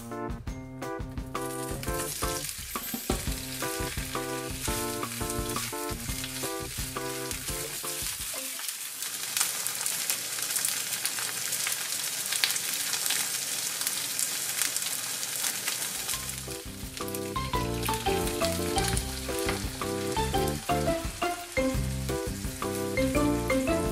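Pieces of thick fried tofu (atsuage) and white leek sizzling in sesame oil in a frying pan, a steady crackling hiss. Background music plays over it, dropping out for several seconds in the middle so that only the sizzle is heard, then coming back near the end.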